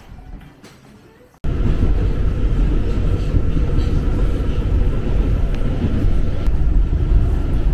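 New York City subway train running, heard from inside the car: a loud, steady low rumble that cuts in abruptly about a second and a half in.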